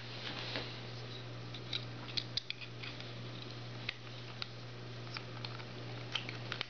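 Scattered small plastic clicks and taps as a 3D-printed robot leg is worked over a micro servo in its printed housing, about ten irregular clicks over a steady low hum.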